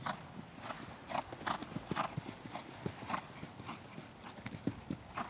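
Grey horse cantering on a sand arena, its hoofbeats thudding in a repeated rhythm on the soft footing.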